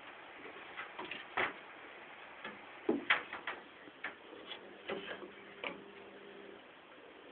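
Irregular light taps and clicks from a cat's paws and claws on the wooden slats of a trundle-bed frame as it plays. The strongest knocks come about three seconds in.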